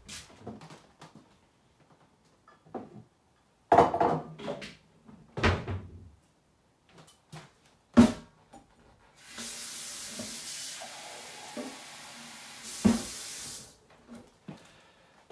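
Knocks and clatter of kitchen items being handled, a few sharp ones standing out, then a steady hiss lasting about four seconds with one more knock during it.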